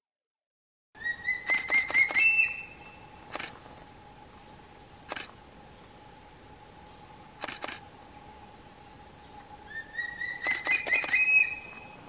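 Juvenile crested hawk-eagle calling: two runs of quick, high whistled notes that climb in pitch as they go, one shortly after the start and one near the end. Three sharp clicks fall between the runs.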